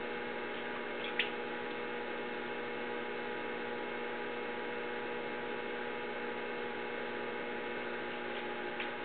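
Electric potter's wheel motor running at steady speed with a constant hum, and a single small click about a second in.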